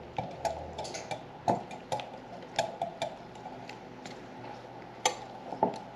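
Wire whisk clicking and tapping against the side of a glass mixing bowl while beating a wet mixture of bread and milk, in irregular strokes about one every half second, the sharpest about a second and a half in and again near the end.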